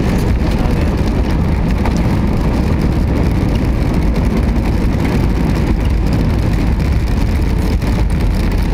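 Steady loud rumble heard from inside an Airbus A320's cabin as the airliner rolls down the runway after touchdown with its ground spoilers up: engine and landing-roll noise.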